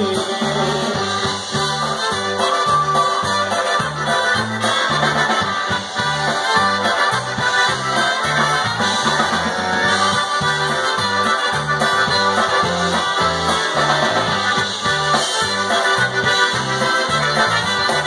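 Live polka band playing an instrumental passage, with trumpets out front over a steady, evenly pulsing bass line.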